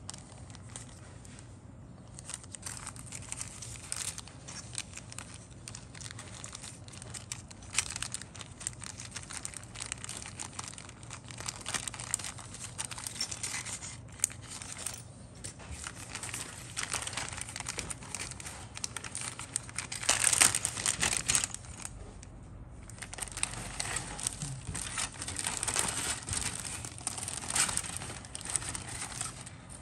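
Thin clear polyethylene zip-lock bags of plastic model-kit parts crinkling as they are handled and pulled open. There are many irregular crackles, loudest in a burst about two thirds of the way through.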